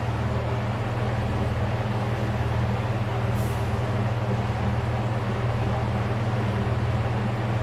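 A large engine running steadily at an unchanging low drone.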